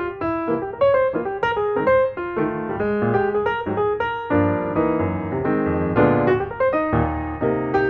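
Background piano music: a light tune of quick notes, turning to fuller, lower chords from about four seconds in until near the end.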